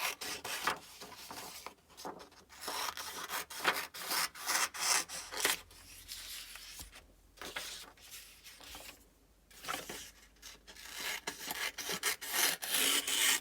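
Rapid back-and-forth scribbling strokes of coloring on paper, a dry scratchy rubbing that pauses briefly twice.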